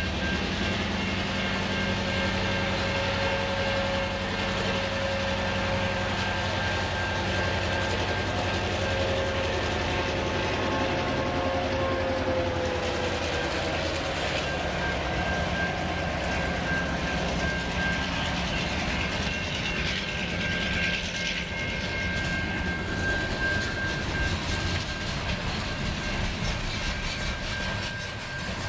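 Herzog Multi-Purpose Machine (self-propelled tie train) passing, its engine running with a steady low hum and a steady high whine. About halfway through, a tone slides down in pitch.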